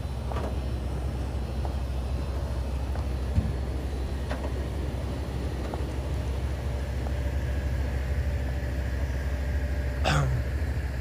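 School bus engine idling with a steady low rumble, and a brief louder noise near the end.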